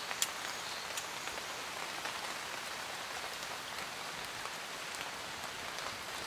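Steady light rain falling, with scattered sharp taps of individual drops close by.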